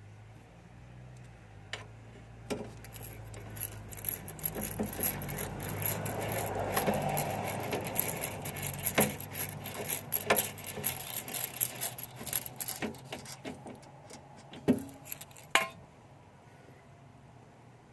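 Clicking, knocking and rattling of tools and small hard parts being handled, with a soft rustle that swells in the middle and fades.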